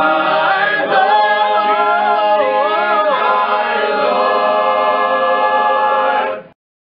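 All-male a cappella choir singing in close harmony, the melody moving over the other voices and then settling into a held chord that cuts off sharply near the end.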